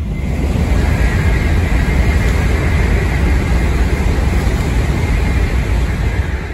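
N700S Shinkansen train passing at speed: a loud, steady rush of wheel and air noise over a deep rumble, easing off near the end as the train moves away.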